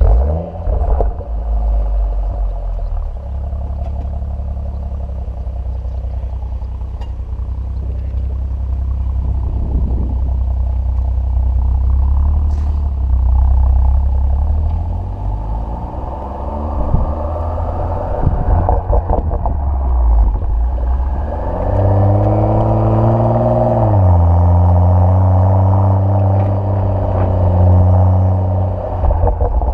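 BMW M135 with an M Performance exhaust starting up with a sudden loud flare, then settling to a steady idle. Its revs climb slowly through the middle, are held higher for a couple of seconds, then drop back to idle.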